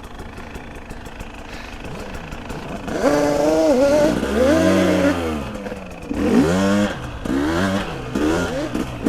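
Two-stroke off-road engine held low for a few seconds, then revved hard in about four surges that rise and fall in pitch as it is pushed up a climb.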